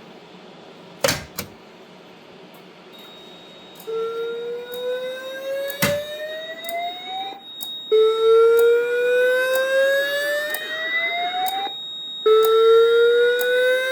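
A sharp click about a second in, then the Cerberus Pyrotronics MXL-V voice-evacuation system's speakers sounding the slow-whoop fire evacuation tone: rising sweeps of about three and a half seconds each, three times with short gaps. A faint steady high whine runs underneath.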